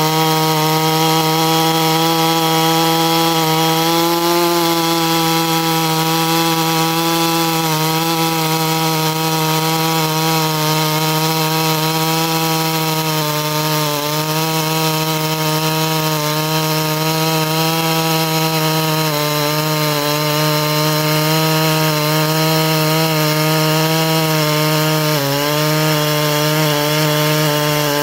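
A Baumr-AG SX82 82cc two-stroke clone chainsaw runs at full throttle as a 36-inch full-chisel bar cuts through a large green hardwood log. The engine note holds steady under load and dips briefly a couple of times.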